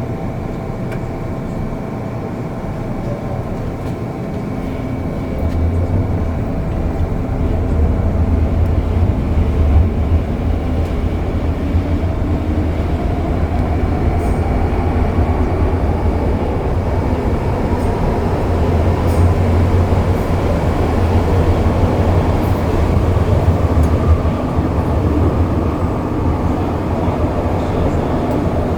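MTR M-Train metro car heard from inside: a steady hum with faint whining tones, then from about five seconds in a deep rumble of traction motors and wheels on rails swells as the train pulls away and gathers speed, running on loudly after that.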